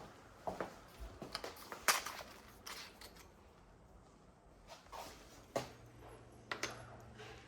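Scattered light clicks and knocks of tools and small hardware being handled, the loudest about two seconds in. A faint low hum starts about five and a half seconds in.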